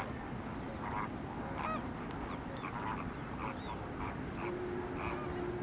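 A flock of greater flamingos calling: many short, goose-like honks and chatter overlapping, with a few high whistled notes among them. A steady low hum joins about four and a half seconds in.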